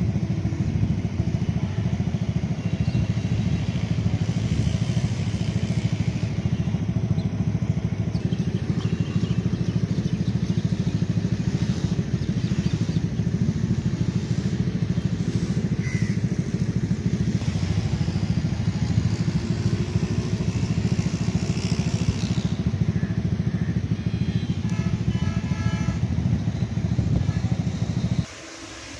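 An engine running steadily close by, a continuous low rumble that cuts off abruptly near the end.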